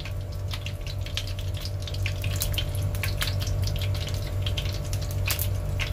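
Hot oil sizzling in a frying pan with popped mustard seeds, curry leaves and dried red chillies, with irregular sharp crackles and pops scattered throughout: a tadka (tempering) frying. A steady low hum runs underneath.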